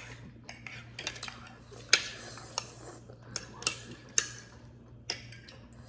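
Metal forks and spoons clinking and scraping against dishes during eating, in irregular short clicks, with one sharp clink about two seconds in the loudest.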